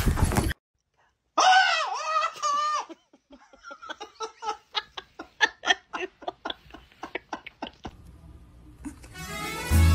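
A sound effect breaks off abruptly, then a high wavering cry of about a second and a half, followed by a person laughing in rapid short bursts for several seconds. Music starts up near the end.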